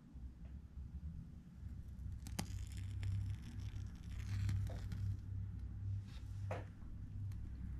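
A light being struck to ignite a candle wick: several sharp clicks over a few seconds and a short scrape near the end, over a low steady hum.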